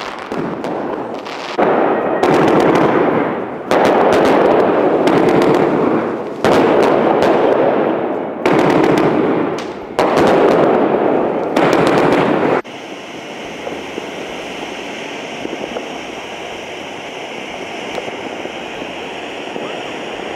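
Crackling fireworks going off in a run of about six loud bursts, each a second or two of dense, rapid crackle with short gaps between. About twelve and a half seconds in it cuts abruptly to a steadier, quieter hiss with scattered pops from a firework fountain spraying sparks.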